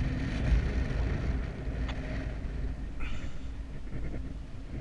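Airflow buffeting an action camera's microphone in flight under a paraglider: a steady, rumbling wind noise that swells and fades a little.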